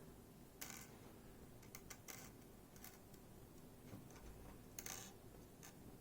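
A few faint, scattered clicks and taps of small metal lock parts being handled and set down as a Miwa JN lock is taken apart.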